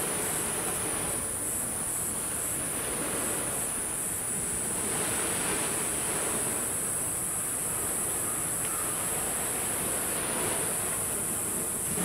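Sea waves washing onto the shore, the surf swelling and easing three times, with a steady high-pitched insect trill running underneath.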